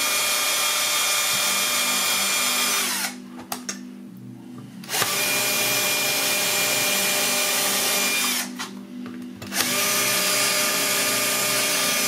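12 V cordless drill drilling out the plastic rivets of a washing-machine door ring. The motor runs at a steady pitch in three spells of a few seconds each, with two short pauses between them.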